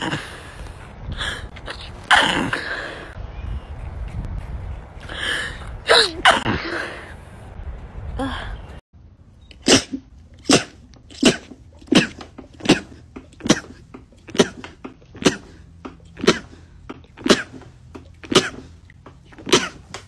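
Women sneezing in fits: several loud sneezes with breaths in between, then another woman's rapid run of about a dozen short, sharp sneezes, roughly one a second.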